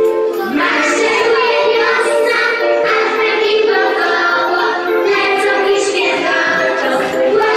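Young children singing a song together, with music accompanying them.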